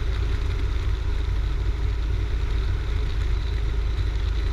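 Cessna 172's engine and propeller droning steadily at reduced power on final approach, heard inside the cabin.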